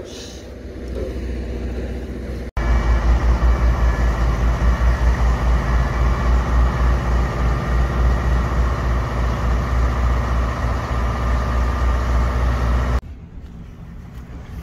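Heavy construction machinery, a crawler crane's diesel engine, running under load with a steady rhythmic low pulsing. It starts abruptly a couple of seconds in and cuts off sharply near the end, with wind noise before and after.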